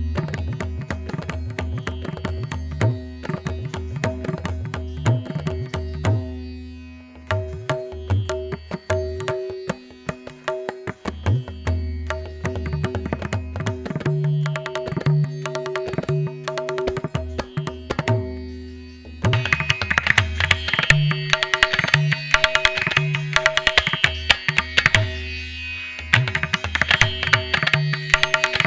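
Instrumental music: repeated drum strokes over a steady held drone and bass notes, with a brighter, busier upper layer coming in about two-thirds of the way through.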